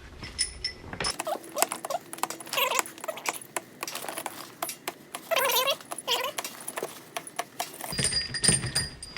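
Light metallic clinking and clicking of loose parts being handled, with an animal's drawn-out, bending call heard twice.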